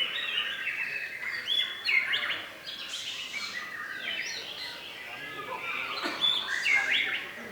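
Several competition songbirds singing at once, a dense tangle of overlapping chirps, trills and quick whistled phrases.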